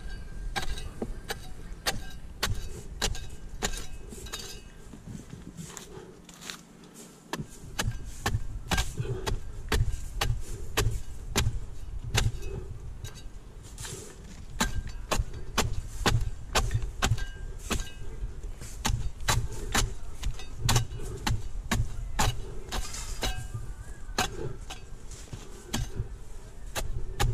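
A hand pruning blade (corvellón) chopping repeatedly into the fronds and frond bases of a Canary Island date palm: sharp strokes about one or two a second, irregularly spaced, over a low rumble.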